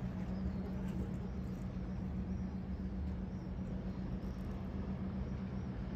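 Steady low engine hum of a motor vessel under way: one constant low drone over a wash of noise, unchanging throughout.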